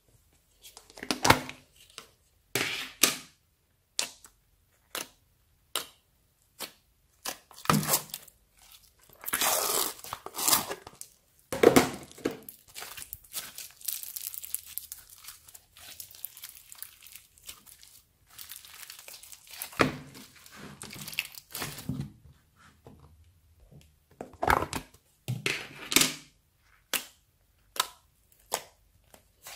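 Slime being squeezed, stretched and poked by hand: irregular sharp crackles, pops and squelches. In the middle, a longer run of dense crackling comes as a bead-filled slime is pulled apart.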